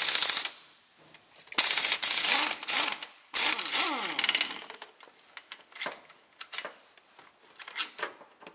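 A powered ratchet wrench running in three short bursts to undo the starter motor bolts, the third burst winding down in falling pitch. Lighter metallic clicks and tool rattles follow in the second half.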